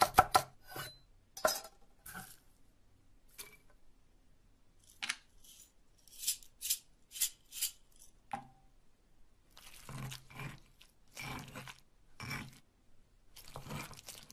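A knife chops down through small plastic game houses on a wooden board, a few sharp chops in the first two seconds. Hard plastic game pieces and dice then click as they drop into a stone mortar, about six clicks. Near the end come four scraping grinding strokes of a stone pestle in a lava-stone molcajete.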